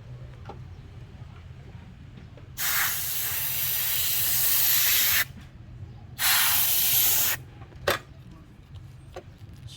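Pressurised spray hissing in two long blasts, the first about two and a half seconds long and the second just over a second, followed by a sharp click.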